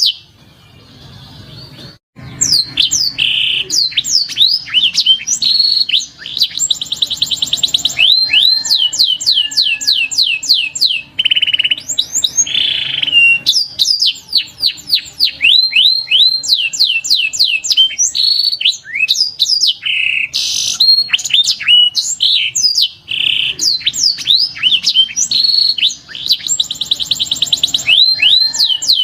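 Domestic canary singing: long runs of quick, repeated falling whistles alternating with fast, rattling trills. The song starts about two seconds in and runs on with only brief pauses.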